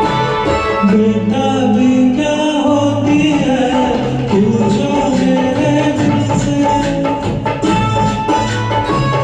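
Instrumental music from the intro of a Hindi film song: sustained melodic notes over a bass line, with light hand-percussion keeping the beat.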